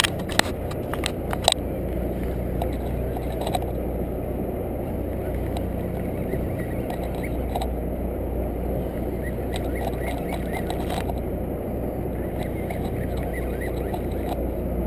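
Sportfishing boat's engine running with a steady low hum, with a few sharp clicks in the first two seconds.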